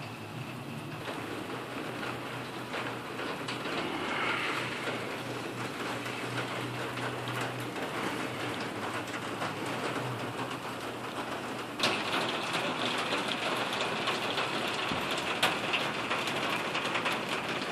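Steady rain falling, a fine hiss with scattered drop ticks; it turns louder and brighter about twelve seconds in.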